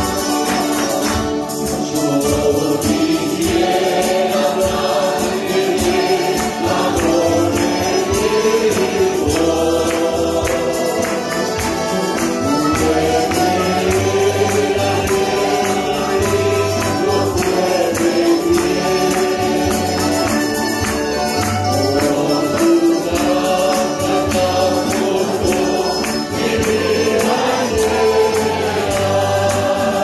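Church choir singing a hymn in Spanish, accompanied by accordion, acoustic guitar and other plucked strings, over a steady percussive beat.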